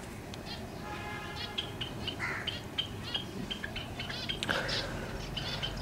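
Zebra finches calling: a string of short, high chirps scattered through, with a slightly longer pitched call about a second in.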